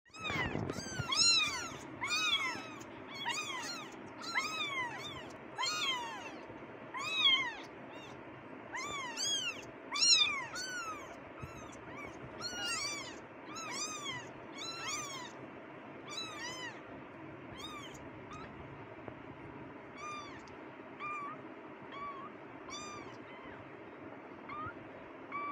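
A litter of very young kittens mewing. The short, high cries rise and fall in pitch and come thick and overlapping through the first half, then fewer and fainter.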